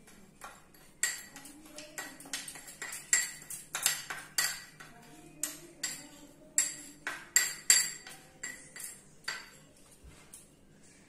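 A spoon clinking and tapping against a bowl and a container in a quick, irregular string of sharp clinks, some ringing briefly, as spoonfuls of powdered sugar are scooped and knocked off.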